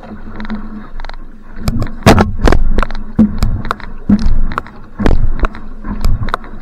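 Outrigger canoe (va'a) paddle strokes: the blade catching and splashing in the water, with sharp splashes and knocks close to the bow camera and water rushing along the hull. About a second and a half in, the strokes turn louder and sharper, coming a few times a second.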